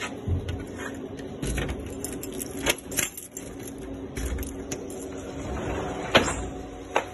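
Keys jangling and metal clicks as the lock of a glass shop door is worked by hand. A sharp click comes about six seconds in. A steady low hum runs underneath.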